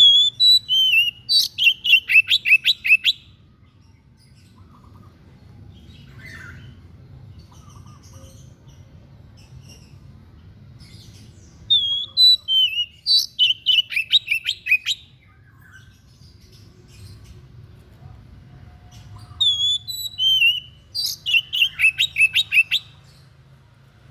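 A songbird called 'dada putih' (white-breast) singing three phrases. Each opens with a few slurred whistled notes and ends in a quick run of about ten sharp, descending notes.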